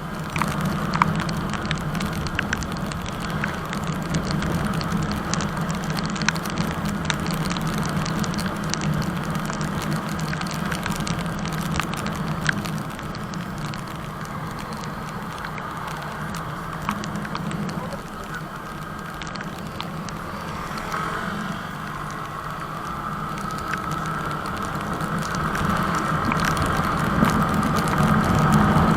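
Yamaha R15 V3's single-cylinder engine running under way, with wind and road noise. The engine note rises gradually over the last several seconds as the bike accelerates.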